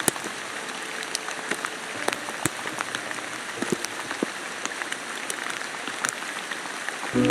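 Steady rain hissing, with individual drops striking close by as sharp irregular ticks.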